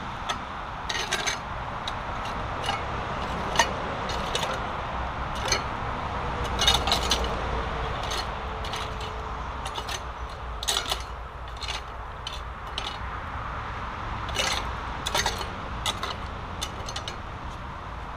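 Long-handled tool scraping and knocking through stones, silt and debris in a shallow stream bed, in irregular strokes with clusters of sharper clinks, over a steady background hiss.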